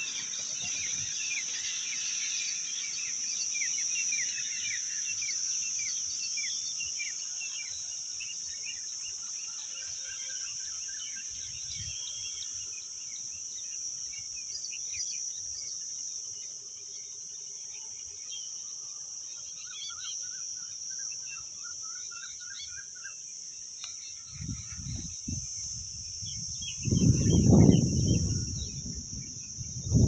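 A steady, high-pitched insect chorus runs throughout, with many short bird chirps and calls over it. Near the end, low rumbling buffets hit the microphone, the loudest around the last few seconds.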